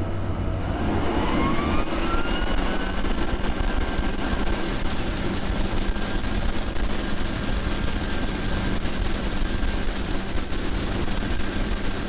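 John Deere 9986 cotton picker running while it picks cotton: a steady machine drone with a whine that rises in pitch over the first few seconds and then holds level. An even hiss joins about four seconds in.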